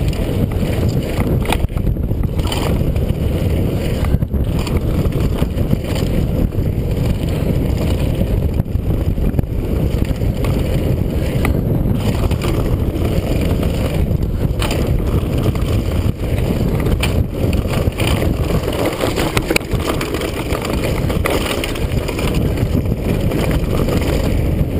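Mountain bike (Kona Stinky Dee-lux) bombing down a dirt singletrack, heard through a helmet-mounted GoPro HD: a loud, steady rumble of wind and tyres on the trail, with scattered knocks as the bike rattles over bumps.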